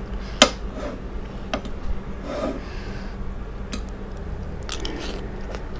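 A metal fork clicking and scraping on a plate of fried fish and rice as food is picked apart, a few sharp clicks with the loudest about half a second in, over a steady low hum.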